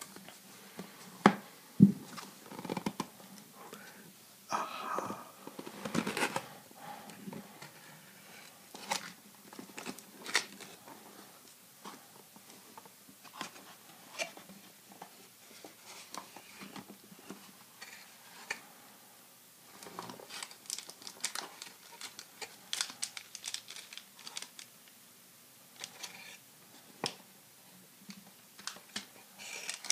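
Close-up handling of a cardboard box of 1991-92 Upper Deck basketball card packs. There are two sharp taps near the start and cardboard rubbing as the lid flap is opened a few seconds in. Scattered light clicks follow, and in the last third a foil-wrapped card pack crinkles as it is lifted out.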